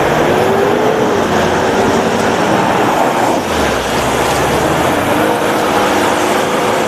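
Modified off-road Toyota Fortuner's engine running hard under load as it drives through deep mud, its note wavering up and down over a steady noisy wash.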